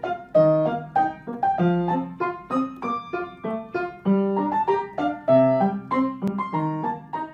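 Background piano music: a light, quick melody of separate struck notes, about three a second.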